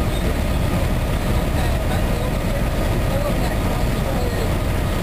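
Cummins ISM straight-six diesel engine of an MCI D4500CT coach running, a steady low rumble heard from inside the coach.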